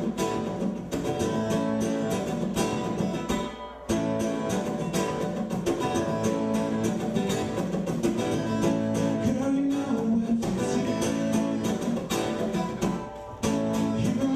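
Acoustic guitar strummed steadily, chords ringing, with brief breaks about four seconds in and again near the end.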